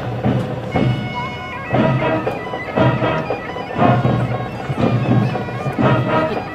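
Marching band playing on parade, with sustained wind tones over a heavy drum stroke about once a second.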